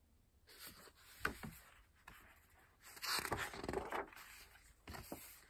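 Handling noise from a hardcover picture book being moved and its page turned: paper rustling, loudest about halfway through, with a few light knocks.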